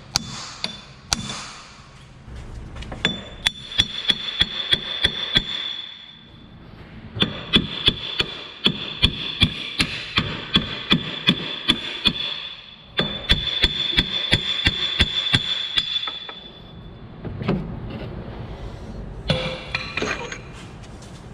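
Hammer blows on steel, about two to three strikes a second in three runs with short pauses between them, each run carrying a steady metallic ring. The blows are knocking the old front hub bearing assembly out of the steering knuckle.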